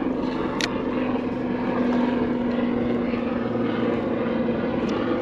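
Steady motor drone with a low hum held at one pitch, and a single sharp click about half a second in.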